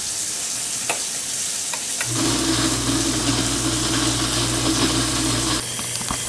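New GE dishwasher starting its cycle: water hisses steadily as it fills through the inlet valve, and about two seconds in a steady low electric hum from the machine comes on, its lowest part dropping out near the end.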